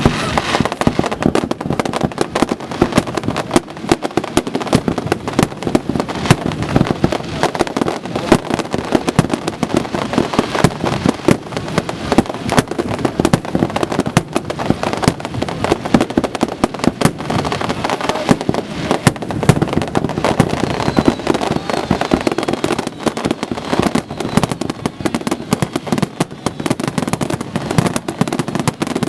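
Fireworks going off in a dense, unbroken barrage of bangs and crackles, the reports overlapping without a pause.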